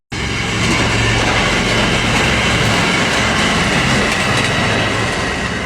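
Loud, steady mechanical rumbling and rattling noise, cutting in suddenly at the start.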